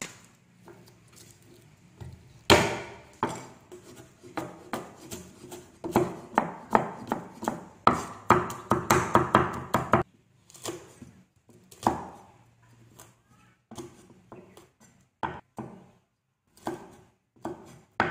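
A cleaver chopping on a thick round wooden chopping block, mincing garlic and cutting red chilies. Sharp knocks come in a fast run from about six to ten seconds in, then slower, scattered cuts.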